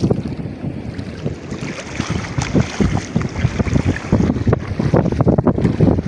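Strong wind buffeting the microphone in gusts. In the second half it is joined by irregular splashes of feet wading through shallow water.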